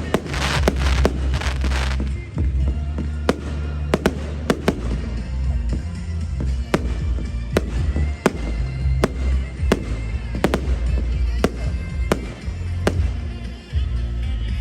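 Firework display: a dense crackle in the first two seconds, then a string of single sharp bangs every half second to a second. Loud music with a heavy bass runs underneath.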